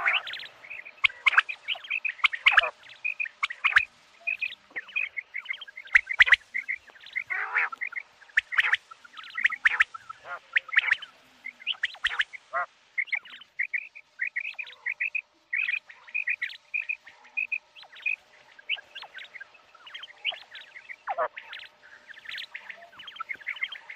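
Common quail calling: a busy, irregular run of short, quick chirping notes with a few louder sharp calls among them.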